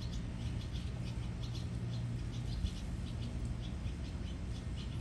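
Small birds chirping in quick, irregular short high notes over a low steady hum.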